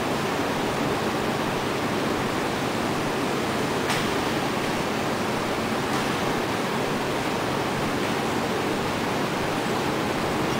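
Steady air noise of a running Shanklin OMNI-G T-71 heat-shrink tunnel, its blowers and conveyor going, with a light click about four seconds in and another near six.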